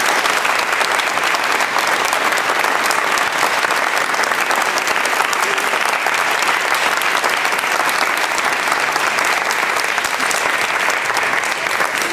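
A church congregation applauding: many people clapping in a dense, steady patter, greeting a newly declared married couple.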